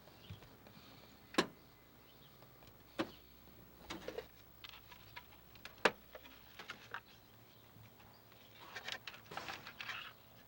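A few single sharp knocks a second or two apart, then a short burst of rapid clattering near the end, from hand tools and parts being handled during engine work.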